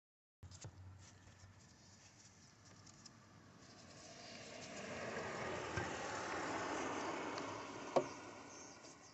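Rustling and scraping handling noise of parts being worked by hand, swelling in the middle, with small clicks and one sharp click near the end.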